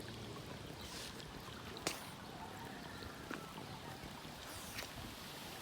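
Pond water trickling steadily out through an overflow drain, with a sharp click about two seconds in and a couple of fainter ticks later.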